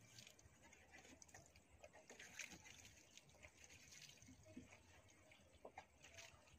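Near silence: faint outdoor background with scattered soft clicks and brief faint chirps.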